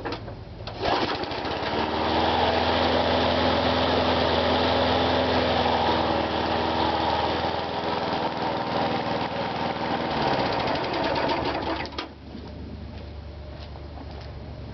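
Single-cylinder 3.5 hp Briggs & Stratton engine of a Murray walk-behind lawn mower running. It speeds up about a second in and runs steadily, then slows down from about ten seconds in and settles into quieter, slower running near the end.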